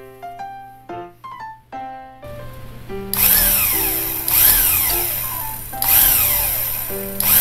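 Background piano music. From about two seconds in, a loud rasping, rushing noise with a falling whine swells and fades about every second and a half.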